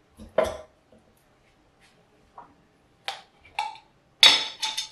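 Kitchen handling noises: a thump about half a second in as chicken is set into the air fryer basket, then a couple of light knocks, and near the end a quick run of clinks from a metal utensil against a glass sauce jar.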